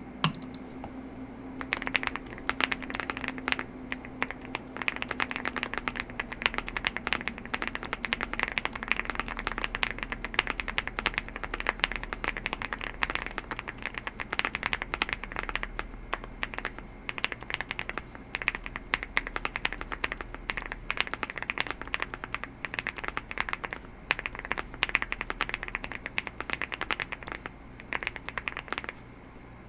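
Fast continuous typing on a WOBKey Rainy75 mechanical keyboard with lubed Wuque Studio Aurora Crystal switches and GKs gradient keycaps: a dense run of keystroke clicks. It begins with a single key press and then runs on steadily from about two seconds in.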